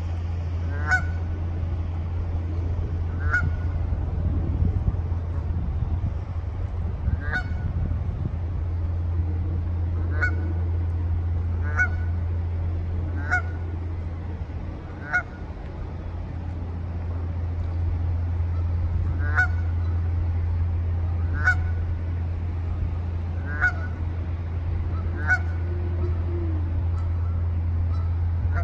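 Canada geese giving short honking calls, about a dozen brief calls spaced a few seconds apart, over a steady low hum.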